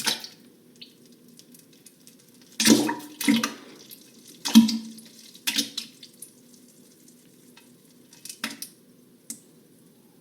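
A series of short, wet splattering and squelching sounds, the loudest three in the first half, then a few weaker ones, over a faint steady hum.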